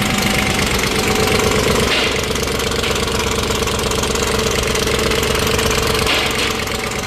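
BMW M62 V8 engine running with a loud, rapid timing chain rattle: the sign of broken timing chain guides.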